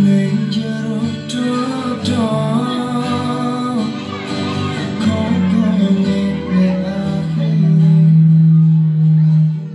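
Music with singing, loud throughout, ending on a long held low note near the end.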